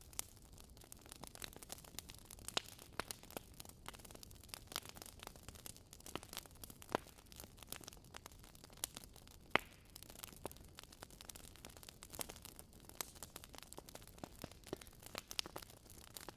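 Wood fire crackling in a fireplace: irregular sharp snaps and pops over a faint steady hiss, one pop louder than the rest about ten seconds in.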